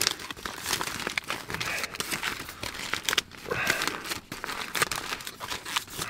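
Aluminium foil crinkling and crackling irregularly as it is folded and pressed shut by hand into a packet.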